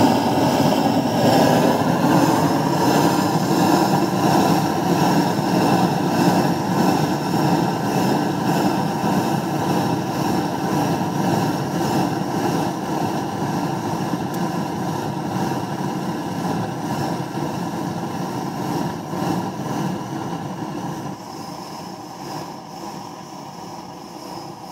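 Sheen X300 flamegun burner running on red diesel with a steady rushing noise that fades gradually and evenly as the gun is shut down and the flame dies back.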